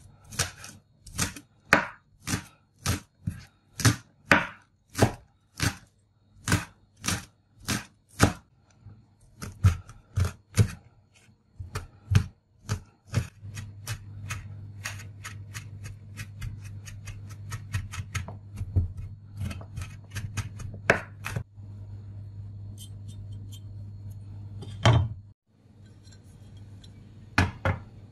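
Kitchen knife chopping garlic and scallion on a wooden cutting board: even strikes about two a second for the first eight seconds, then quicker, denser mincing. A steady low hum runs under the later chopping, and a single louder knock comes near the end.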